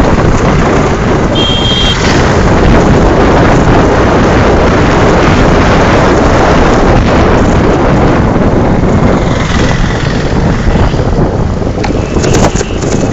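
Loud wind rushing over the microphone of a TVS Apache motorcycle ridden at speed, with the bike's road and engine noise underneath. A brief high tone sounds about a second and a half in.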